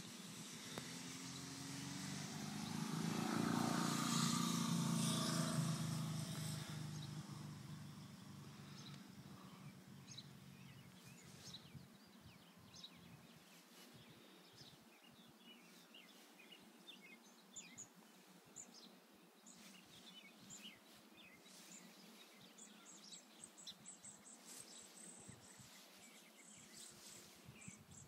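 A vehicle passes, rising to a peak about four seconds in and fading away. Then there is quiet outdoor ambience with scattered bird chirps and insects trilling.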